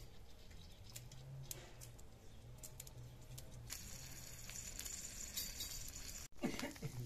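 Fresh coriander being picked apart by hand, with faint leafy rustling and small clicks of stems snapping. A low steady hum runs underneath, and a short falling sound stands out near the end.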